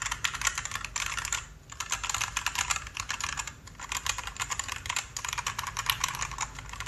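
Typing sound test on a Gamakay CK61 mechanical keyboard with TTC switches and XDA keycaps: fast runs of keystrokes, broken by two short pauses. The speaker puts its plain sound down to its low-cost tray-mount/sandwich case build.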